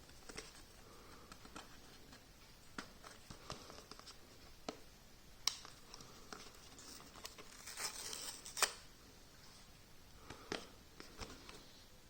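Hands handling and opening the phone case's paper packaging: scattered clicks and taps, with a stretch of rustling and tearing about two-thirds of the way through that ends in a sharp snap.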